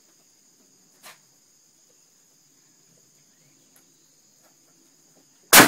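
Crickets chirring steadily, then near the end a single loud rifle shot with a long echo trailing off.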